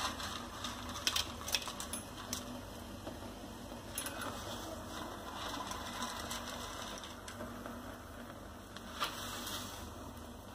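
Water heating in a steel pot over a gas burner, a steady low hiss, with a few light clicks and taps as dry noodle sticks are dropped in against the pot.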